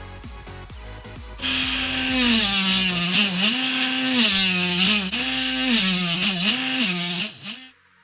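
Electric motor of a homemade rotary-tool mini drill press running at high speed, its pitch dipping and recovering several times. It starts about a second and a half in, after background music, and cuts off near the end.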